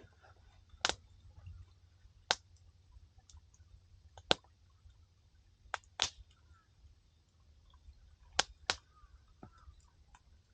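Wood campfire crackling: sharp, irregular pops, seven in about ten seconds, some coming in quick pairs, over a faint low steady hum.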